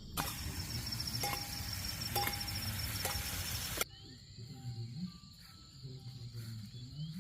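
A steady high-pitched insect trill in outdoor ambience, under a loud even hiss that cuts off abruptly about halfway through, with a few light clicks in it; after the cut the trill carries on more quietly.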